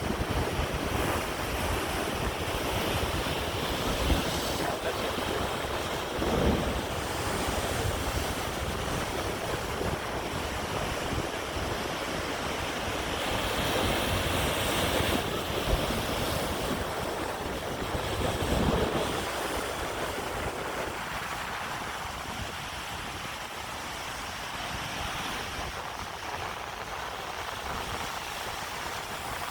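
Ocean surf washing against a rocky shore, with surges about a quarter and two-thirds of the way through, and wind buffeting the microphone that eases near the end.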